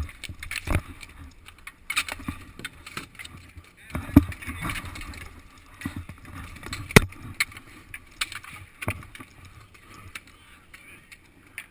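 Clatter of roller hockey play on a concrete rink, close up from a goalie's helmet: sticks, ball and inline skate wheels on the surface, with scattered sharp knocks, the loudest about four and seven seconds in.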